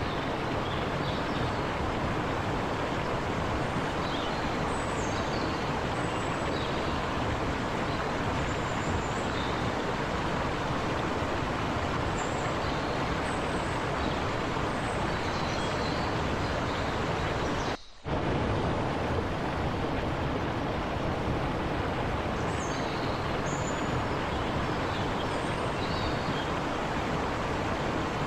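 Forest river rushing steadily over rocks, with a few short high chirps now and then. The sound cuts out for a split second about eighteen seconds in.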